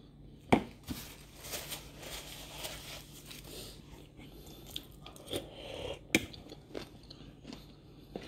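Close-up eating sounds: chewing with soft handling of food in a plastic tub, and two sharp clicks, about half a second in and about six seconds in.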